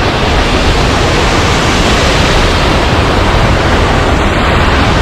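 Steady, loud rush of a triple waterfall, falling water pouring over a travertine ledge.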